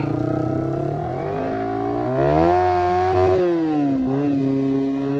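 Yamaha R15 V3's single-cylinder engine running through an aftermarket Akrapovic exhaust while the bike is ridden. Its pitch rises about a second and a half in as the throttle opens, holds, then drops near the middle and settles to a steady run.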